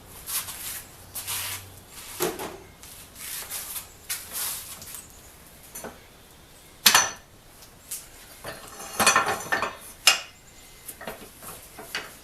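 Metal tools clinking and knocking against a steel pipe vise and its bolted mounting plate, in irregular strikes. The loudest is a sharp knock about seven seconds in, followed by a run of clatter around nine to ten seconds.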